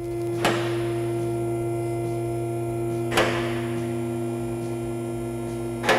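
Two-post vehicle lift's electric hydraulic pump motor running with a steady hum, raising the car. Three sharp clicks come at even intervals.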